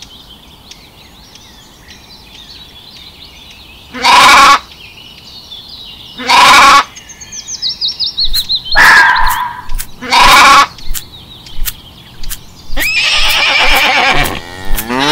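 Sheep bleating: four loud bleats about two seconds apart, then a longer, denser run of calls near the end, over faint, continuous birdsong chirping that includes a short falling series of whistles in the middle.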